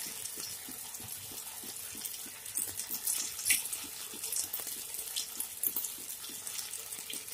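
Soybean kabab balls deep-frying in hot oil in a nonstick kadai: a steady sizzle full of small crackles and pops, with a few louder pops partway through.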